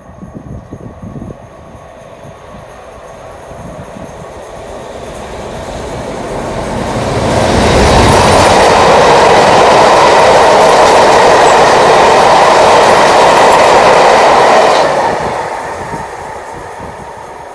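A Class 56 diesel locomotive and its freight train passing at speed. The rolling rumble builds over several seconds, stays loud for about seven seconds as the train goes by, then fades quickly.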